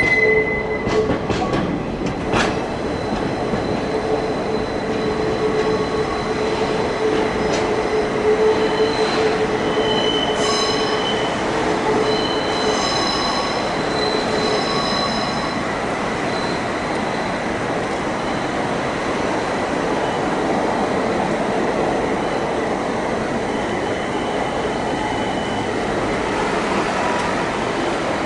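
Steel wheels of a Toei Oedo Line 12-600 series subway train rolling slowly on curved track, with high-pitched wheel squeal coming and going through the first half. After that only a steady rolling noise is left.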